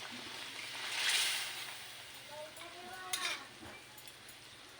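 Chicken and spice paste sizzling in a hot pan as water is added for the curry gravy, with a louder hiss about a second in.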